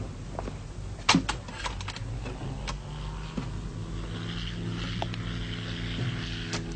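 Metal tools clinking and tapping on a radial aircraft engine under repair, with a sharper clank about a second in. A steady low hum builds in from about three seconds.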